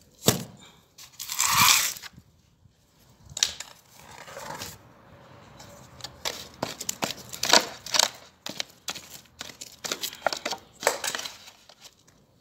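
Plastic sack rustling and crinkling while potting soil is scooped and handled, in irregular bursts and crackles. The longest, loudest rustle comes about a second and a half in.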